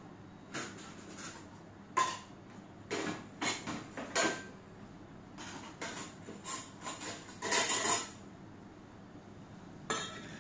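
Dishes and cutlery clinking and knocking as plates and bowls are handled and set down on a kitchen counter: a string of scattered clinks and clatters, some with a short ring.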